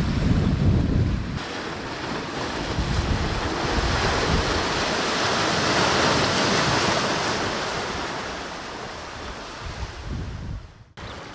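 Surf breaking and washing over a rocky shore, swelling to a peak about halfway through and then fading. Wind buffets the microphone with a low rumble for the first second or so, and the sound briefly cuts out near the end.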